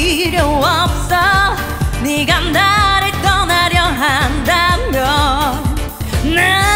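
Female vocalists singing a Korean dance-pop song live over a backing track with a steady bass beat, the held notes wavering with vibrato.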